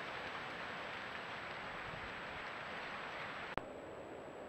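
Steady hiss from a trail camera's audio at night, with a faint thin high electronic whine. A single sharp click about three and a half seconds in marks a cut between two recordings, after which the hiss is a little lower and quieter.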